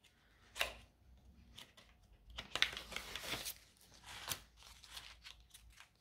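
Faint rustling and crinkling of paper and plastic, with a few light clicks and taps, as card-making stamp supplies are handled. The rustling is densest about two and a half to three and a half seconds in.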